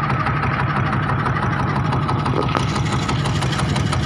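Small fishing boat's engine running steadily with an even, low, pulsing beat.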